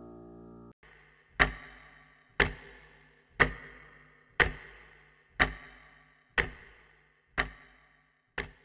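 The last held piano chord of the song cuts off under a second in. Then a clock ticks steadily, one sharp tick a second, eight ticks in all, each ringing away before the next.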